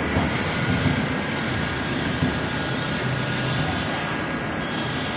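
DSP pellet extruder running steadily: a constant machine drone with a steady high hiss.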